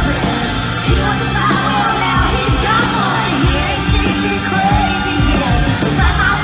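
Live country band playing with a woman singing lead over amplified guitars, keys and drums, heard from within the audience, with scattered yells from the crowd.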